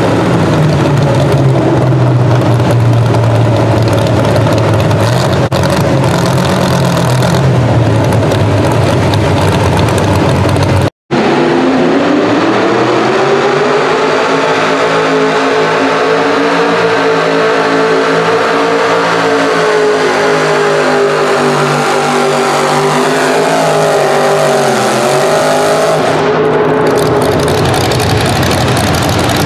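Pro Stock mini pulling trucks on Chevrolet S-10 bodies running at full throttle, each pulling a weight sled. For the first third one engine holds a steady, deeper note. After a sudden cut, a second truck's engine revs up quickly and holds high rpm, with a short dip in pitch near the end.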